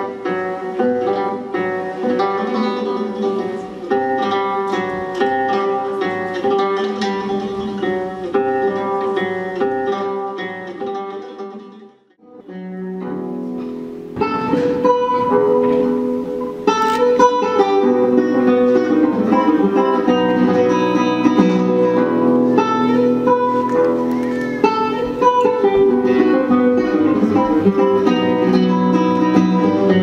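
Nylon-string classical guitar played live, a plucked melody with chords. About twelve seconds in it drops out briefly, then comes back louder.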